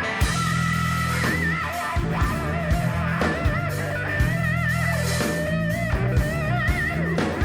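Rock band playing live: an electric guitar lead holds long, wavering vibrato notes over a steady bass line and drum hits.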